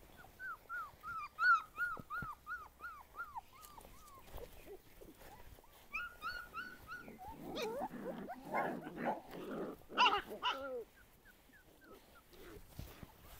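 Young puppies whimpering in a quick run of short, falling cries, about three a second. Then they growl at one another in rough play, with a sharp yelp near ten seconds in.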